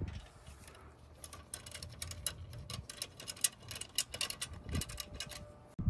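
A socket ratchet clicking rapidly and unevenly as it turns a wheel lug bolt. The clicks start about a second in and cut off suddenly near the end.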